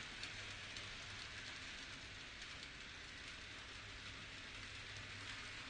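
Electric model train running up a spiral helix track: a faint, steady whirring rattle of its wheels and motor on the rails, with light clicks throughout.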